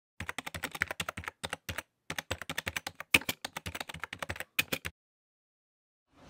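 Computer keyboard typing: a quick run of keystrokes, with a short pause about two seconds in, stopping about five seconds in.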